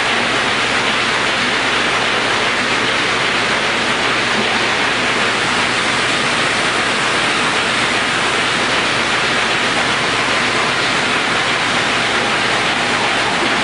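Steady, loud rushing noise that does not change, strongest in the upper-middle range.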